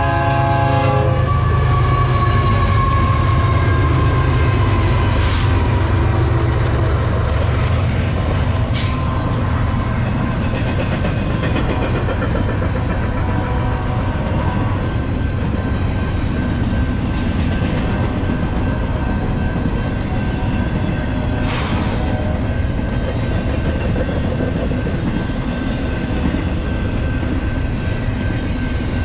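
Diesel freight train passing close: a horn blast that cuts off about a second in, then the steady rumble and rattle of the locomotives and double-stack container cars rolling by, with three sharp clanks along the way.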